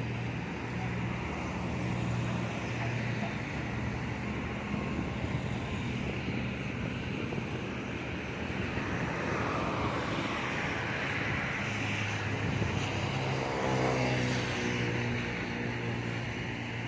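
JCB backhoe loader's diesel engine running steadily. Its note rises about two-thirds of the way in and falls back near the end.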